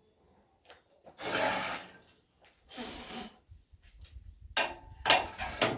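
Wood being handled and shifted on a work surface: two scraping slides, then several sharp knocks and clicks near the end.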